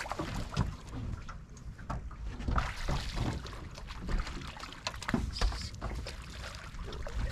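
Small waves lapping and slapping against a fishing boat's hull in wind, with irregular knocks and thuds throughout.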